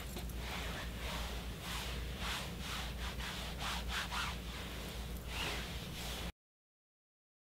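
Gloved hand wiping down a padded couch, a quick run of rubbing strokes at about three a second over a low steady hum. The sound cuts off abruptly about six seconds in.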